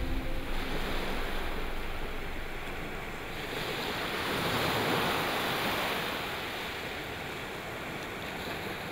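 Surf washing onto a beach: a steady rush of breaking water that swells to its loudest about five seconds in, then eases back.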